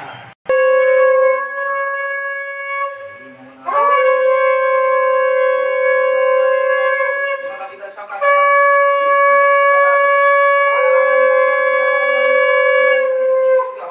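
Conch shell (shankha) blown in three long held blasts. The first fades away, and the third is the longest. Blowing the conch marks the auspicious moment of the Bengali Hindu blessing ceremony.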